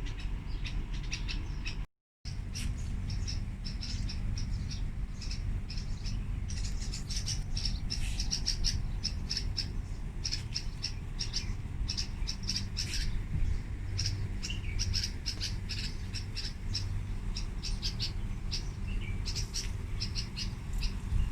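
Small birds chirping rapidly and repeatedly in short, high notes, over a steady low hum. The sound drops out briefly about two seconds in.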